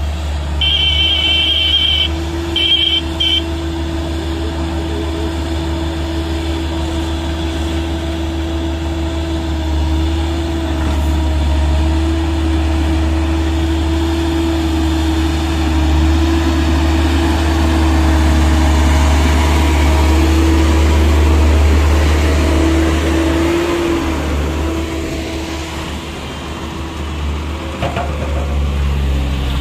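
Diesel engines of a single-drum road roller and a tracked excavator running steadily, a low drone that swells somewhat in the second half. In the first three seconds a high-pitched signal sounds in three short bursts.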